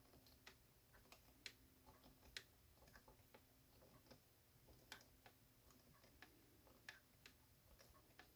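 Faint, irregular small clicks and ticks of a washer screw being driven by hand with a Phillips screwdriver into a stiff plastic model part, a few sharper clicks standing out among them.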